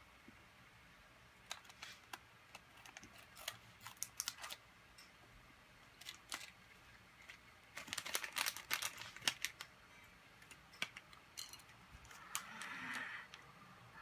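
Sealed plastic LEGO minifigure blind bag crinkling and crackling in a child's hands in bursts of sharp clicks, the loose parts inside clicking as the bag is squeezed and felt to guess which figure it holds. A longer rustle near the end as the packet is pulled at.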